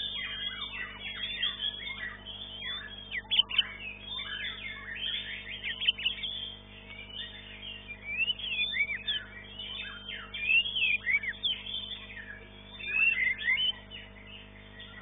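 White-rumped shamas (murai batu) singing in quick overlapping phrases of varied whistles, chirps and rising and falling notes, with a steady low hum underneath.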